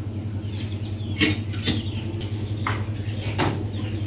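A few sharp clicks and knocks, four in all, over a steady low hum, with faint bird chirps in the background.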